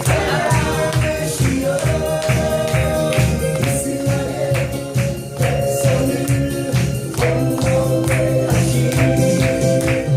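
Gospel worship music with a steady beat, sustained chords and singing.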